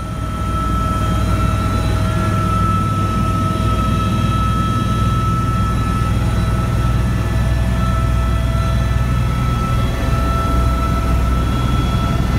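Helicopter engine and rotor noise heard inside the cabin in flight: a loud, steady low drone with a thin steady whine on top.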